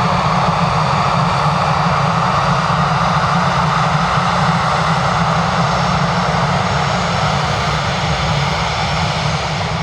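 Airbus A318 Elite's two turbofan engines running at high power for take-off, a loud steady jet noise that begins to fade slightly near the end.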